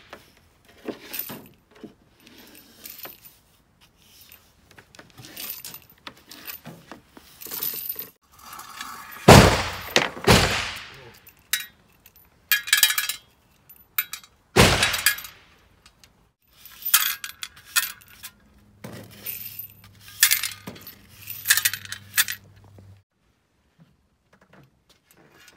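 Spent brass cartridge casings clinking and rattling as they are swept up with a broom and scooped onto a metal shovel, in irregular clusters of sharp clinks with louder scraping clatters about 9 s and 15 s in. The clatter stops a couple of seconds before the end.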